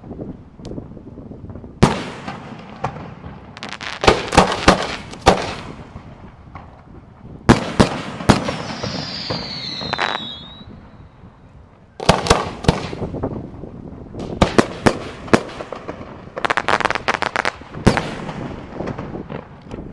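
Aerial fireworks display: clusters of sharp bangs from bursting shells, several in quick succession at a time, with a descending whistle about halfway through.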